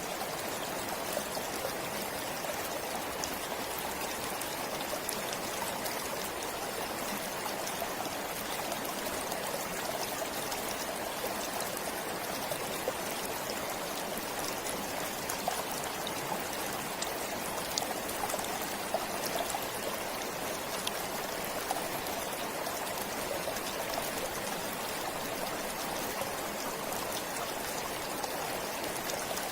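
A forest stream flowing steadily, water trickling and splashing over rocks in an even, unbroken rush.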